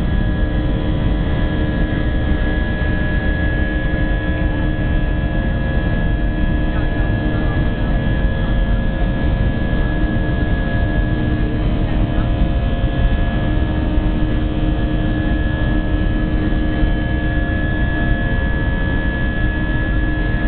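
Airbus A319's IAE V2500 turbofan engines and airflow heard inside the cabin during the climb after takeoff: a steady drone with a high whine and several lower hums running through it.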